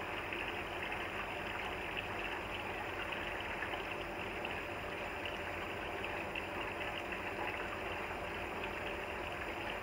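Steady kitchen background noise at an even level, with a few faint ticks of a knife working through soft-shelled turtle meat on a plastic cutting board.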